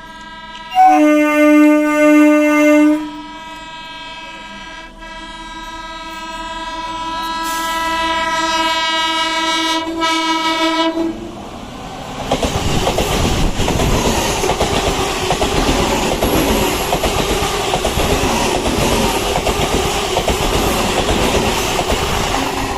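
Indian electric local (EMU) train horns: a short loud blast, then a long steady blast that grows louder for about eight seconds as the train approaches. The horn stops and the train passes close by with a loud rumble and wheel clatter.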